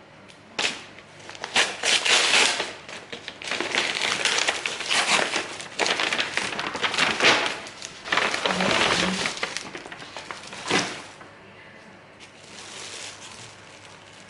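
Packaging being handled and unwrapped: a run of irregular crinkling and rustling that stops about eleven seconds in.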